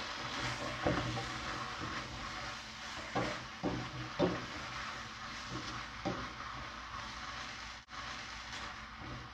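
Roast pork and fried yuba sizzling steadily in a nonstick wok as a spatula stir-fries them. The spatula knocks against the pan several times: about a second in, three times between three and four and a half seconds, and once more around six seconds.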